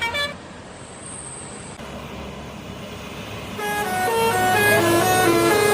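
A bus's telolet horn plays a quick melody of stepped horn notes starting about three and a half seconds in, over the low steady hum of engine and traffic. Just after the start, the last notes of another horn tune cut off abruptly.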